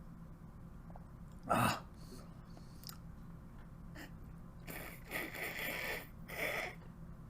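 A man's short, sharp gasp about a second and a half in, then a few noisy breaths later on, as he struggles to get down a mouthful of century egg.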